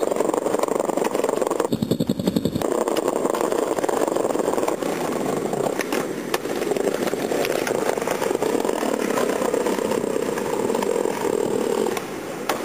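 Skateboard wheels rolling over brick paving stones, a steady rumble broken by sharp clacks of the board.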